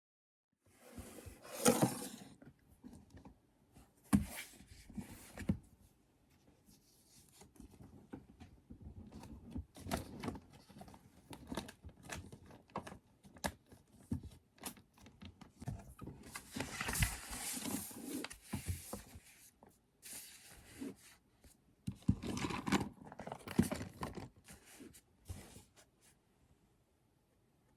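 Quiet, irregular desk-work handling sounds: paper rustling and scraping, with light knocks and clicks of small objects being handled and set down.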